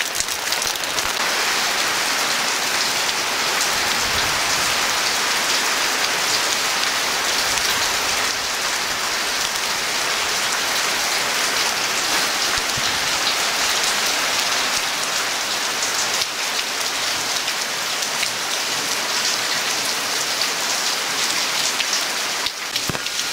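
Heavy rain falling steadily, a dense, even hiss with no break.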